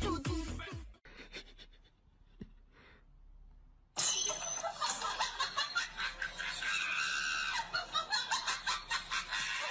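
A person laughing in short, repeated bursts, starting suddenly about four seconds in after a near-quiet gap.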